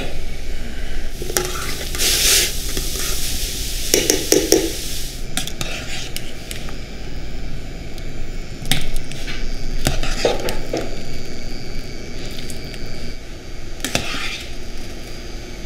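Pot of boiling water bubbling while a stainless mesh skimmer scoops konnyaku pieces out, with several splashes and clinks of the skimmer against the stainless pot.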